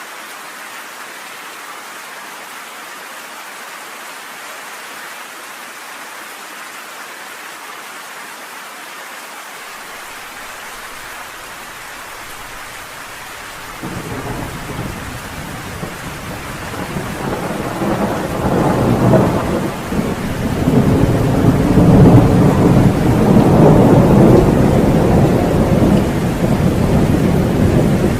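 Steady rain hissing through a thunderstorm. About halfway through, a long roll of thunder begins suddenly, builds to its loudest near the end and keeps rumbling.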